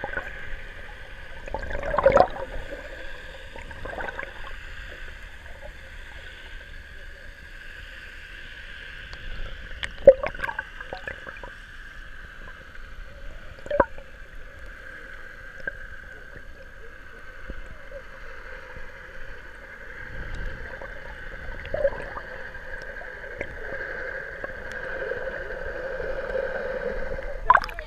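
Muffled underwater sound picked up through an action camera's waterproof housing in shallow sea water: a steady murmur of moving water. A few sharp knocks break through, the loudest about ten seconds in.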